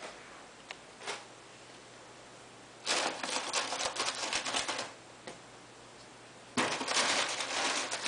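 Cardboard shoebox being torn and picked at by hand around a ragged hole. Two bursts of rapid crackling: the first about three seconds in lasts nearly two seconds, and the second starts shortly before the end.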